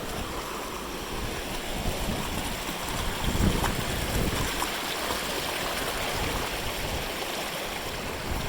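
A mountain stream rushing steadily, with gusty wind buffeting the microphone and a short louder burst about three and a half seconds in.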